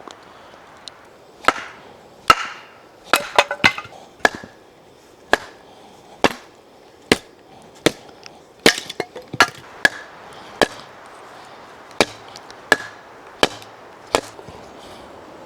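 Wood being chopped: about twenty sharp, separate strikes at an irregular pace of roughly one or two a second, some coming in quick pairs or triples.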